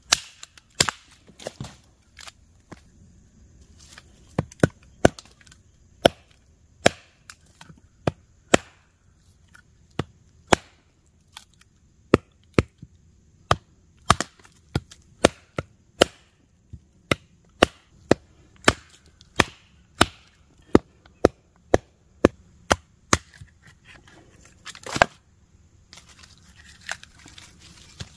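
A fixed-blade knife being batoned down through a short upright log: the spine is struck again and again with a wooden baton, giving sharp wooden knocks a little over one a second, unevenly spaced, with short pauses. The strikes split the log.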